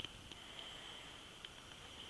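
Very quiet outdoor ambience: a faint steady high-pitched hiss, with a soft click at the start and another faint tick about one and a half seconds in.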